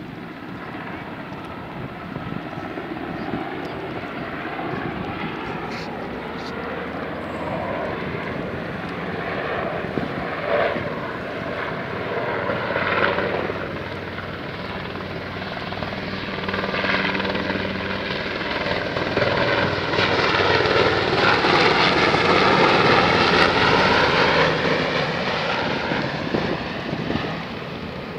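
HM Coastguard search-and-rescue helicopter flying over, its rotor and engine noise building to a loud peak about three quarters of the way through, with a bending pitch as it passes, then easing off.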